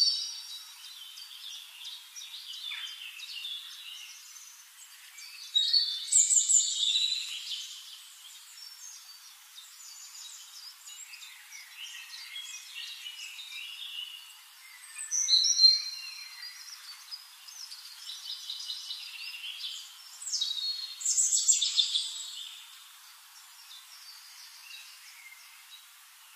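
Small birds chirping and calling in short high notes and quick sliding calls, with louder bursts of calls about six, fifteen and twenty-one seconds in.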